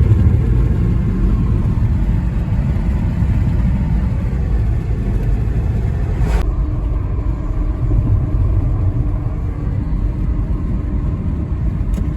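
Steady low rumble of road noise heard inside a moving car. About six seconds in there is an abrupt edit, after which the higher hiss drops away and the low rumble carries on.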